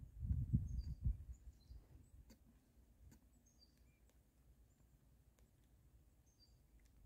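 Small birds chirping now and then in short high notes, over faint outdoor background noise, with a low rumble in the first second or so.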